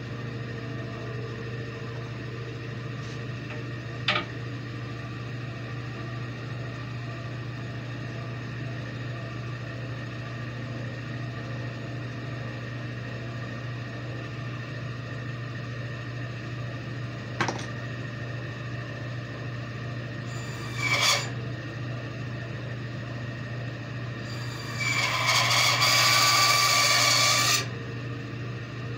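Benchtop bandsaw running with a steady hum, with a couple of sharp knocks. Near the end comes a short rasp, then about three seconds of the blade cutting through a walnut blank, the loudest sound.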